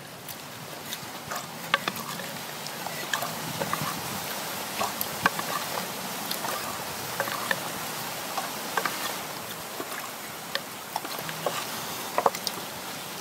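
Knife chopping cooked duck meat on a wooden chopping board: irregular sharp knocks, one to a few a second, over a steady background hiss.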